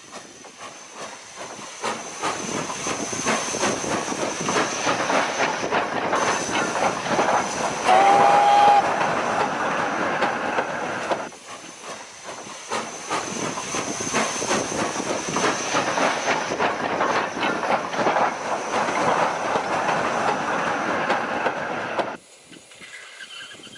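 Steam locomotive running, with fast exhaust chuffs and steam hiss and a short whistle blast about eight seconds in. The sound dips briefly about eleven seconds in, then cuts off sharply near the end.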